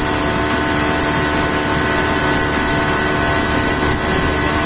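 Boat engine running steadily at a constant speed, with a steady high hiss above it.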